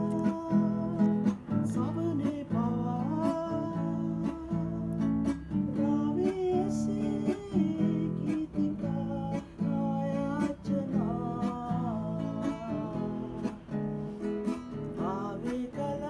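A man singing a Sinhala song to his own strummed nylon-string classical guitar.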